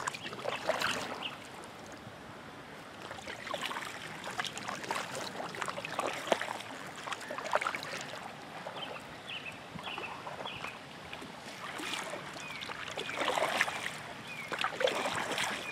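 Double-bladed canoe paddle dipping and pulling through river water in steady strokes, with splashing and water running off the blades.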